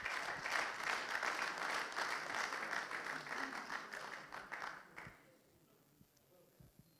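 Audience applauding for about five seconds, then stopping.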